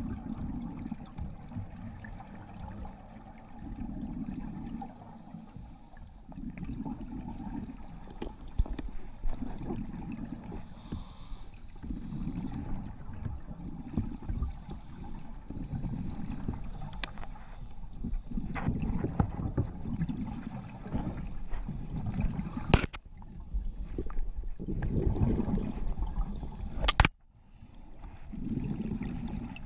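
Scuba diver breathing through a regulator underwater, with exhaled bubbles rumbling in bursts every two to three seconds. Two sharp knocks come near the end.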